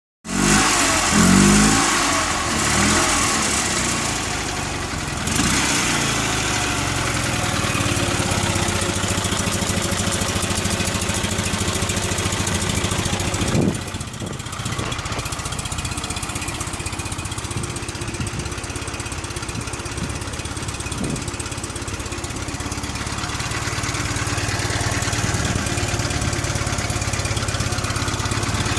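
Rebuilt Fiat 126 BIS flat-twin engine running: revved up and down in the first few seconds, then settling to a steady idle, with one short rev blip about halfway through.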